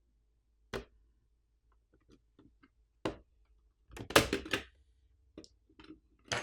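Scattered small clicks and taps of a screwdriver and loose screws on a mini PC's metal and plastic parts as it is taken apart, with a louder rattling clatter about four seconds in.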